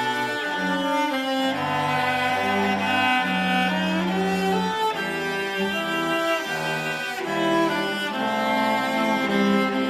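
A school orchestra's strings playing a slow piece in sustained notes, the chords moving about once a second over a low bowed bass line.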